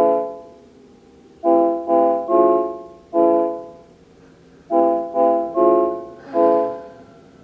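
Piano-style keyboard playing depressing chords in a repeating figure: three chords struck in quick succession, then one held chord, each ringing out and fading.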